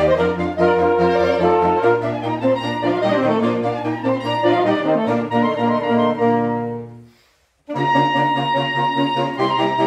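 Saxophone ensemble playing sustained chords over a low baritone-sax bass line. About seven seconds in the music dies away to a brief gap, then starts again with new chords.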